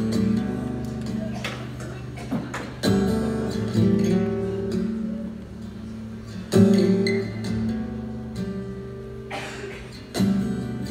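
Solo acoustic guitar playing a song's opening, slow chords struck every few seconds and left to ring, amplified through a concert hall's sound system.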